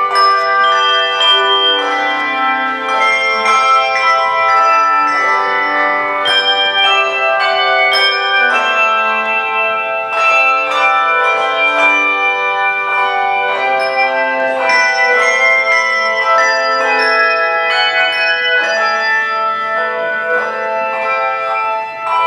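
Handbell choir playing a piece: many hand-rung bells struck in overlapping chords, each note ringing on after its strike.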